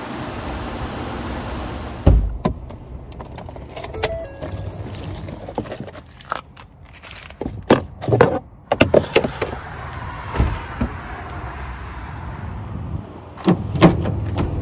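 Wind rushing on the microphone at first, then a heavy thump about two seconds in and a string of clicks and knocks as a pickup truck's cab is cleared out by hand. Paper receipts crumple in the middle, and the tailgate latch clunks near the end.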